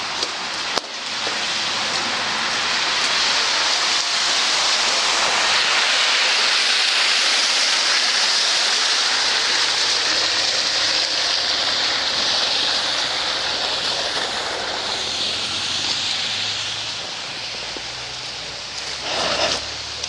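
Car tyres hissing through slush on a wet road as traffic passes, a long even rush that swells, holds and fades away.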